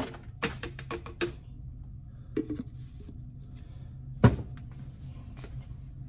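Powder-coated cast bullets clattering out of a PVC pipe shaker into a wire sifting basket, a quick string of clicks in the first second or so and a few more later. About four seconds in comes a single loud thump as the PVC pipe is set down on the bench.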